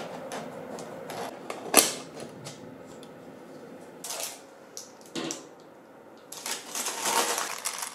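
Handling noises as a sponge cake is taken out of its springform pan: a sharp click about two seconds in, a couple of soft taps and scrapes, then parchment paper lining rustling over the last second and a half.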